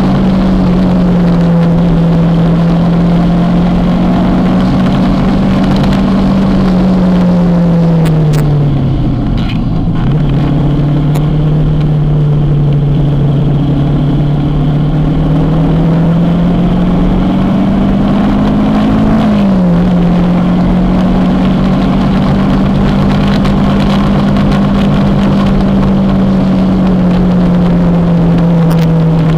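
Kawasaki motorcycle engine running while riding, over a steady rushing noise. Its pitch falls about a third of the way in, climbs slowly, then drops sharply again about two thirds of the way through and holds steady.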